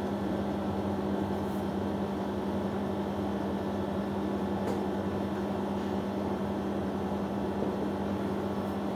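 Steady room hum with a strong low tone, typical of an air conditioner or similar machine running, with a few faint strokes of a marker on a whiteboard.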